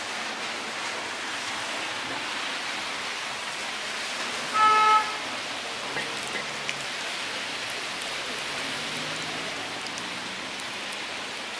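Steady hiss of rain. About four and a half seconds in, a vehicle horn gives one short toot, the loudest sound.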